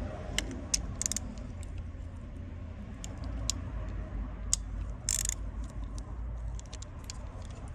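Hand tools working on the engine bay: scattered sharp metal clicks and clinks, as of a ratchet wrench on the bolts holding a harness bracket, with a brief hiss about five seconds in.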